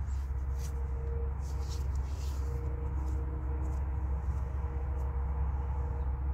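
Steady low rumble inside a car cabin, with a few faint clicks and rustles from small items being handled.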